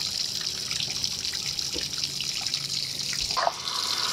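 Water running with a steady hiss from the hose supply used to flush the outboard's cooling system, with a few faint taps.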